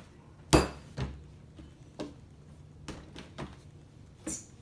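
A ball of homemade slime being bounced and dropped on a table: a string of irregular thuds and taps, the loudest about half a second in.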